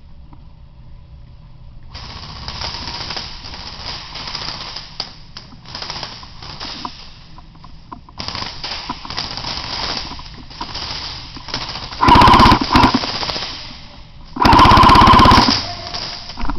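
Airsoft guns firing in rapid full-auto bursts, a fast rattle that runs through most of the stretch, with two much louder, closer bursts near the end.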